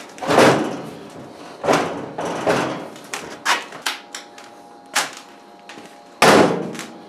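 Sheet-steel tool chest drawers and cabinet being handled: three sliding, scraping pushes and several sharp metal knocks, with a brief ring of metal between them.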